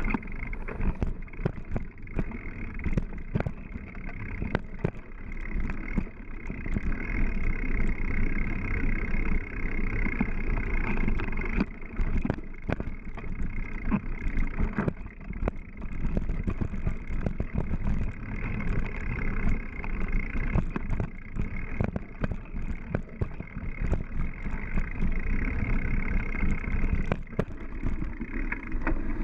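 Mountain bike rolling along a dirt trail: a steady, muffled rumble of tyres and wind, broken by frequent clicks and knocks as the bike rattles over bumps.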